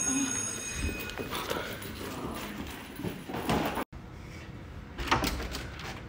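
School bell ringing, dying away in the first second or so, then hurried footsteps and shuffling on a carpeted floor, with a door knocking open about five seconds in.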